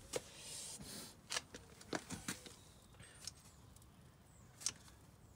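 A few scattered, faint light clicks and knocks of handling during hands-on work, after a soft hiss in the first second; the sharpest click comes about three-quarters of the way in.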